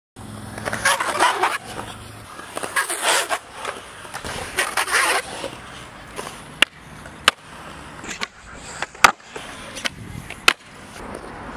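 Skateboard on a concrete skatepark: urethane wheels rolling, swelling and fading over the first half, then about six sharp wooden clacks of the board popping and landing tricks, the loudest about nine seconds in.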